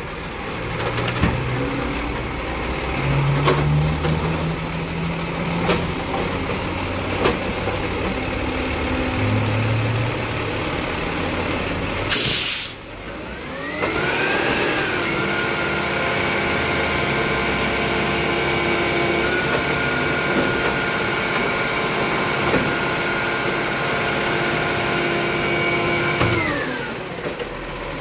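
Garbage truck: its diesel engine runs low for the first twelve seconds, then there is a short, sharp air-brake hiss. After that the engine and hydraulic pump rise to a steady high whine for about twelve seconds and wind back down near the end.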